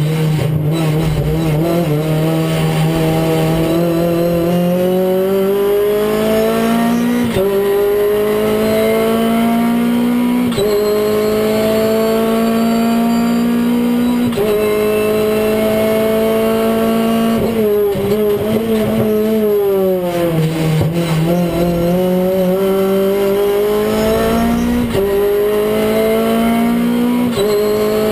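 Renault Clio Cup race car's four-cylinder engine heard from inside the cockpit, accelerating hard through the gears. The note climbs and drops sharply at each upshift, four times in the first fifteen seconds, then falls away as the car slows around eighteen seconds in, and climbs again through three more upshifts.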